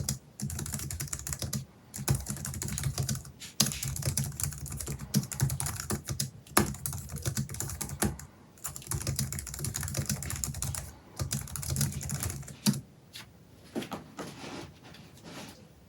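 Typing on a Logitech MX Keys Mini's bare low-profile scissor-switch keys, no silicone skin fitted: quick runs of key clicks broken by short pauses. The typing thins to a few scattered keystrokes near the end.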